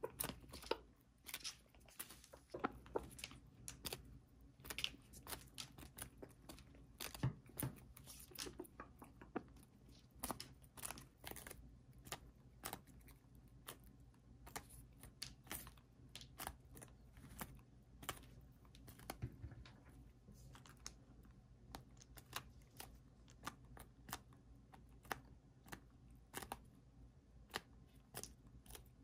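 Serama bantam roosters pecking at napa cabbage leaves: a steady stream of sharp, irregular beak clicks and crisp leaf tearing, several a second.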